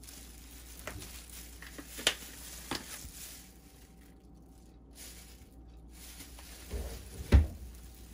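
Kitchen handling noises: a few light clicks and taps in the first three seconds, then two dull knocks near the end, the second the loudest.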